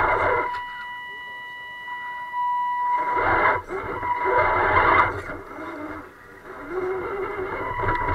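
Radio-controlled rock crawler's electric motor and gear drivetrain, heard close up from a camera mounted on the truck: a steady high whine, with the drivetrain running in several short bursts as it climbs.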